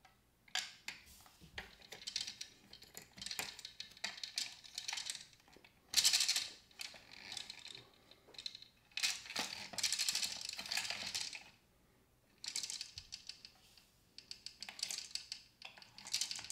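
Plastic gears of a Hasbro Downspin game clicking and ratcheting as the key turns them, with small plastic tokens rattling through the gears and dropping. The clicking comes in several bursts of a second or two, with short pauses between turns.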